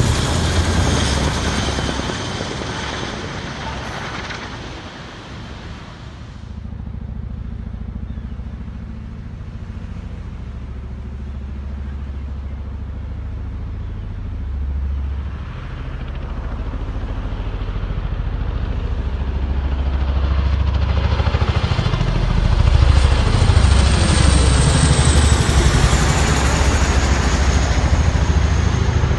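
Boeing CH-47 Chinook tandem-rotor helicopter flying past very low, its rotors throbbing under engine noise. The sound is loud at first and fades over the first six seconds as it moves away, then builds again from about halfway through as it comes back in close.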